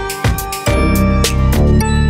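Background music with a steady beat; the bass drops out for about half a second at the start and then comes back in.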